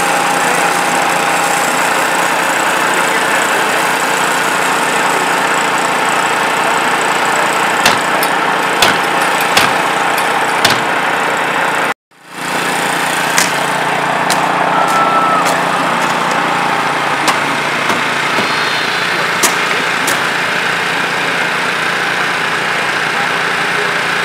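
Small gasoline engine of a portable hydraulic rescue-tool power unit running steadily, with a few sharp snaps over it. The sound cuts out abruptly about halfway through and fades back in.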